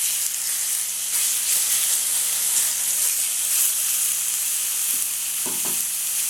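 Pieces of chicken breast sizzling steadily as they fry in hot oil in a wok, with a brief clatter of a utensil near the end.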